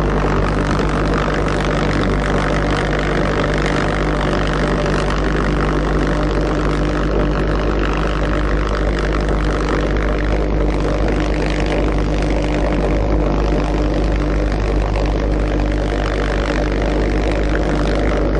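Reproduction Argus As014 pulsejet, the V-1 flying bomb's engine, running steadily: a loud, low buzzing drone that holds an even pitch and level.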